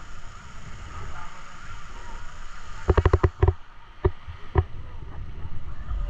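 Wind rumbling on the microphone with faint voices of beachgoers. About three seconds in comes a quick run of sharp knocks, then two single knocks.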